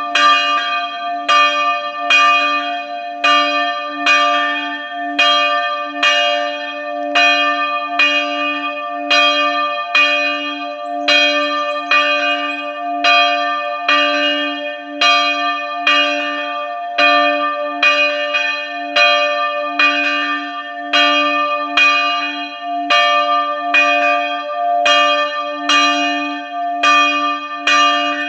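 Church bell ringing steadily at about two strikes a second, each strike ringing on into the next over a continuous low hum.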